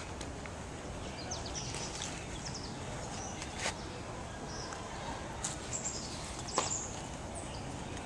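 Outdoor background noise with scattered short bird chirps, and two sharp clicks a few seconds apart.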